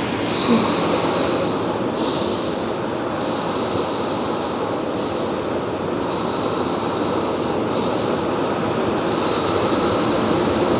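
Steady noise of ocean surf and wind, with a high-pitched hiss that comes and goes every second or two.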